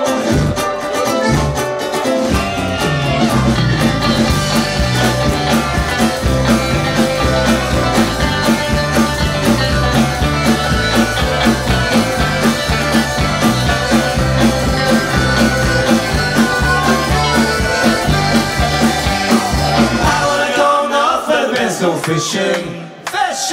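Live folk-rock band playing a song with guitars and a steady bass-and-drum beat. About 20 seconds in, the bass and drums drop out and the music thins, dipping briefly just before the end.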